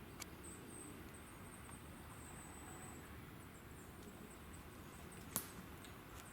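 Faint woodland ambience, with a thin, high-pitched trill for a couple of seconds early on and one sharp click near the end.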